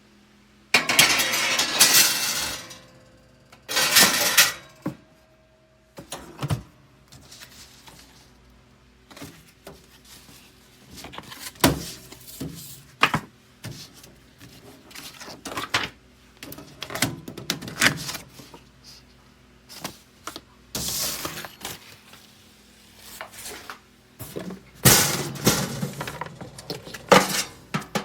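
Handling noises: several bursts of rustling and many scattered clinks and knocks, like kitchen items being moved and set down.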